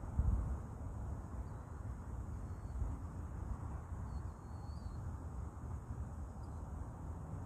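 Wind rumbling on the microphone, a steady low buffeting, with a few faint high chirps in the background.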